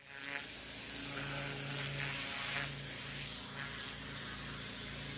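Pressure washer jet blasting an old mossy paving slab: a steady hiss of spraying water over the low hum of the machine, fading in at the start.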